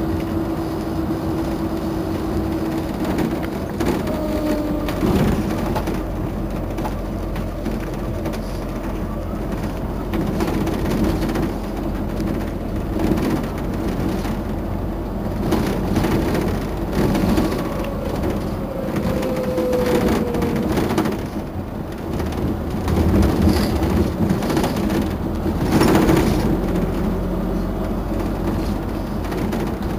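Otokar Navigo T midibus engine idling while the bus stands still: a steady low drone with a rumble beneath it and a few short knocks.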